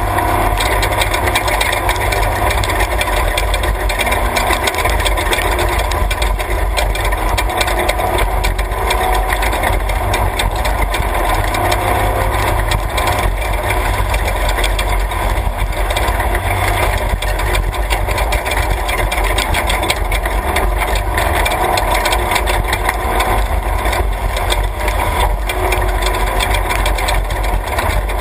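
Class 3 off-road race truck driving at speed on a rough dirt track: the engine runs steadily under a heavy rumble of tyre and road noise, with constant rattling and knocking from the chassis over the bumps, heard onboard.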